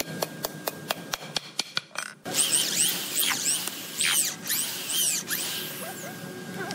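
Quick light hammer taps driving a nail into a hardwood tabletop, about four or five a second. Then a cordless drill boring into the wood, with high chirps rising and falling over it.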